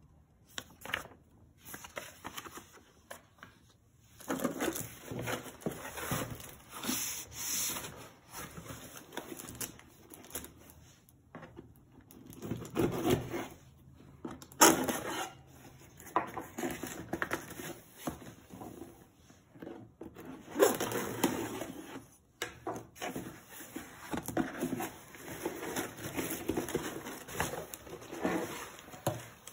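A cardboard shipping box and its paperwork being handled: irregular rustling, rubbing and scraping, with a few sharp knocks.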